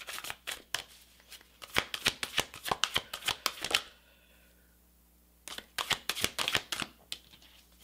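A deck of large oracle cards being shuffled by hand: a fast run of sharp card clicks, stopping for about a second and a half midway, then starting again.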